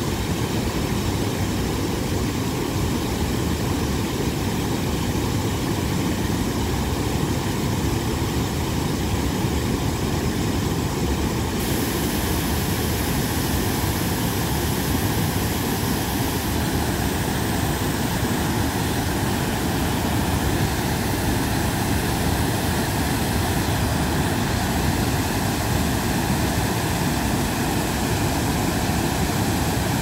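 Steady roar of a waterfall and fast-flowing river water, an even rushing noise with no breaks.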